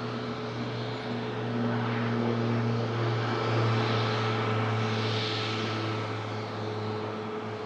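Airplane engine noise as an aircraft passes, a steady drone that swells in the middle and eases off toward the end.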